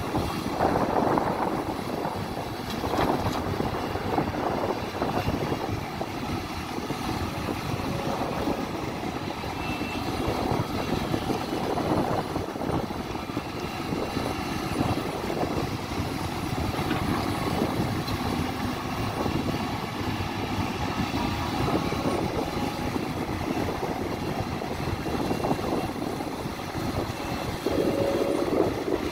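Diesel engine of a Hidromek HMK310 tracked excavator running at working revs as it digs and loads a dump truck. The drone swells and eases every few seconds.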